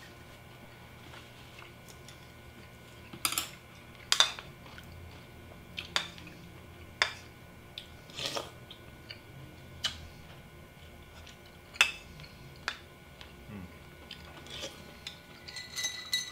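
Tableware clinking during a meal: a ceramic soup spoon and chopsticks tap against bowls and plates in about a dozen scattered sharp clicks. Near the end comes a short sip of iced tea through a straw.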